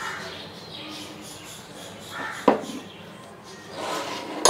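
Oiled hand rubbing and patting over a soft ball of yeast dough in a glass bowl, with a sharp tap about halfway through.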